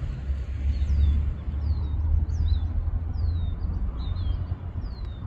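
Small birds chirping, a string of short downward-sliding notes repeated every half second or so, over a steady low outdoor rumble.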